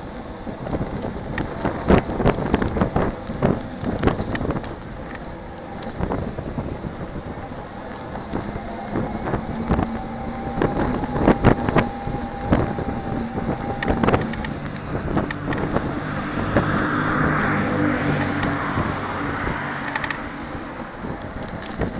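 Riding noise from an electric unicycle on a pavement path: wind on the camera microphone, many short knocks and rattles from bumps in the surface, and a steady high whine. For the last several seconds a low hum swells and then fades.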